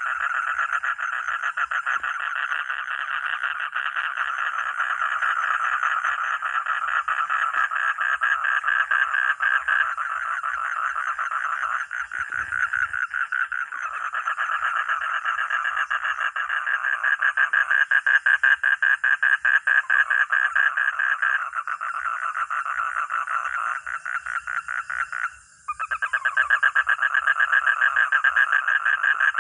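Chorus of frogs calling, a dense run of fast pulsing calls. The calling breaks off for a moment near the end, with a steady high-pitched trill running above it throughout.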